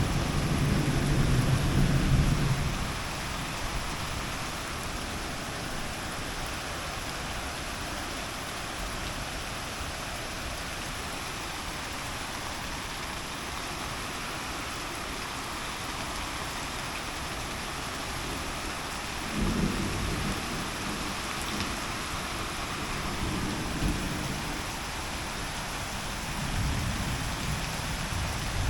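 Heavy rain falling in a steady hiss, with low rumbles swelling up for the first couple of seconds and again several times in the last third.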